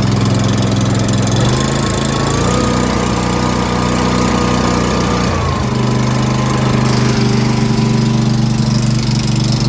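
Ramrod 1150 mini skid steer's engine running steadily. From about a second and a half in to about five and a half seconds its note shifts and a higher whine comes in over it, then it settles back.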